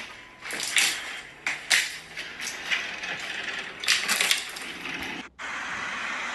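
A plastic ice-cube tray full of water being handled and carried: a run of short clattering knocks and rattles, then a steady hiss for the last second.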